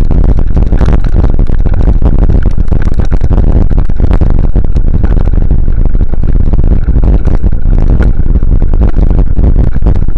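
Loud, constant rumble of wind and jolting on a vehicle-mounted camera's microphone, with frequent clatters and rattles as it rides down a rough, rutted dirt track.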